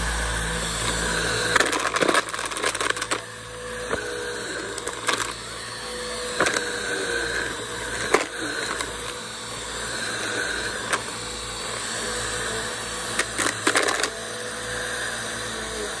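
Bissell upright vacuum cleaner running steadily as it is pushed over grass and bare dirt. Sharp clicks and rattles of grit, small stones and dry grass being sucked up come in a cluster about two seconds in, singly now and then, and in another cluster near the end.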